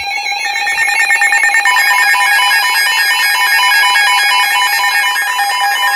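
Emergency Alert System alert tones starting a new alert: a loud, steady electronic tone joined by rapidly alternating higher tones.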